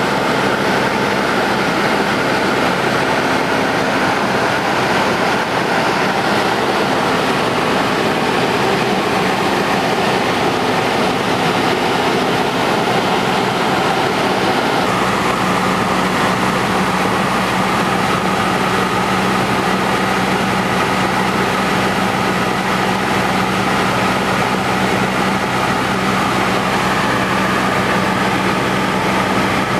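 Cessna 172's piston engine and propeller running steadily in flight, heard inside the cabin as a constant loud drone mixed with wind noise. The engine note shifts slightly about halfway through.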